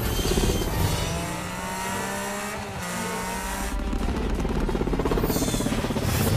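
Film sound effects of a flying gunship's engines whining and rushing past, over dramatic score music; from about four seconds in, a fast rhythmic pulsing takes over.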